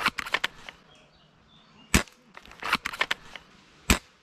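Airsoft gunfire: sharp snapping shots, a loud crack at the start followed by a quick run of lighter clicks, another single crack about two seconds in, a second run of clicks, and a final crack near the end.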